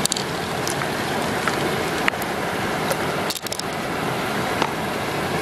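Steady rush of running stream water, with a few light clicks as the mussel shell and pearls are handled.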